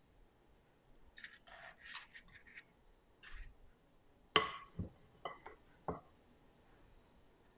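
A metal spoon scraping sticky coconut macaroon batter from a bowl and knocking against the bowl and tray while portioning it into paper cups: soft scrapes, then a sharp clink about four and a half seconds in and a few lighter knocks after it.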